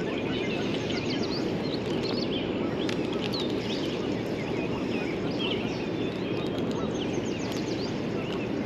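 Steady rush of flowing river water around a wading angler, with small birds chirping over it throughout.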